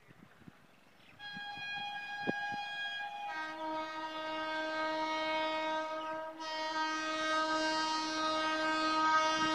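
Indian Railways train horn sounding: a higher-pitched note for about two seconds, then a long, lower-pitched blast that grows louder and carries on past the end.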